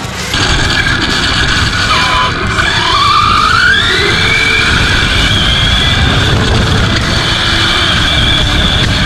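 Electric RC truck's motor whining as it is driven. About two seconds in the whine rises in pitch over a couple of seconds as the truck speeds up, then holds steady and high over a constant low rumble.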